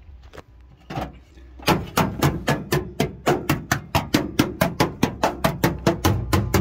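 A hammer tapping on the steel floor pan of a Ford Cortina Mk4, a couple of single knocks and then a quick, even run of sharp blows at about four to five a second.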